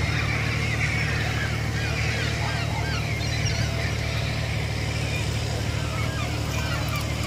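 Steady low engine drone with faint, scattered high chirps over it.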